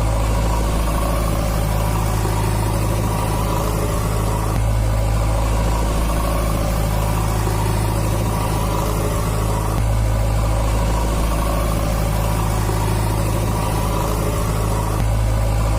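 Heavy engine idling steadily with a deep, even hum.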